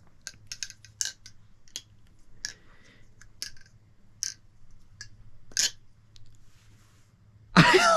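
Nabalis Bird of Prey balisong (butterfly knife) being flipped: irregular light clicks and clacks of the handles swinging on their pivots and meeting, with one louder clack about five and a half seconds in.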